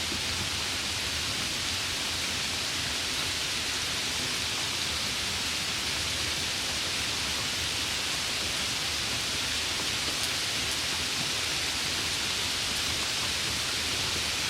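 Steady summer rain, an even unbroken hiss with only a few faint drop ticks.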